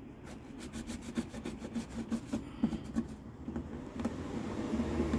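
Irregular scratching and rubbing with many small clicks: old weatherstrip rubber residue being scraped and wiped off a car door's window channel.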